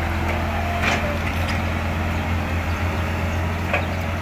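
Caterpillar hydraulic excavator's diesel engine running steadily while the machine digs. Two sharp knocks come through, about a second in and near the end.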